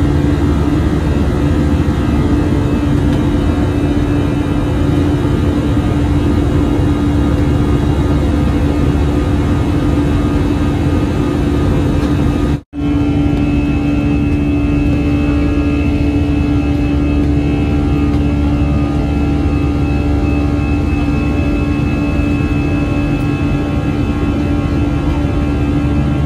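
Steady drone of a turboprop airliner's engines and propellers heard inside the cabin during the climb after take-off, with a strong steady hum. The sound cuts out for an instant about halfway through.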